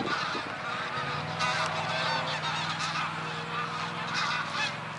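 A flock of geese flying over, honking repeatedly in many short overlapping calls, with a low steady hum underneath from about a second in.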